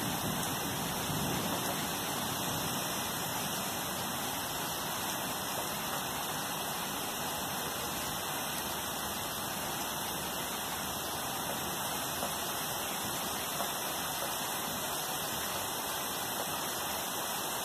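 Steady rain falling during a summer thunderstorm, an even hiss that holds throughout.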